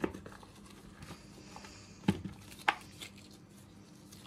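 Clay paste being handled by hand: quiet rustling with a few sharp clicks and taps, the loudest two close together about two seconds in, as hard, dried-out lumps are picked out of the mix.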